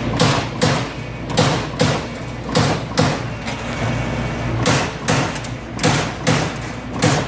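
Amada Aries 245 CNC turret punch press punching sheet metal: sharp repeated hits, mostly in pairs about half a second apart, over the steady hum of the running machine, with a short pause about halfway through.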